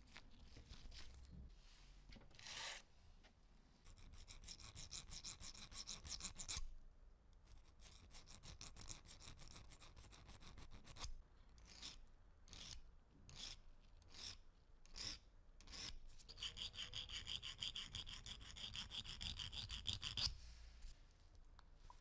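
Needle file rasping against the neck of a small porcelain perfume bottle, faint. It comes in runs of quick short strokes, with slower single strokes about every half second in the middle.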